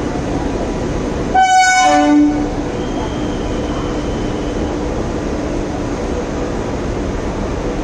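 Short, loud train horn blast about a second and a half in, dropping in pitch as it sounds. Under it runs the steady running noise of LHB passenger coaches rolling slowly past a platform.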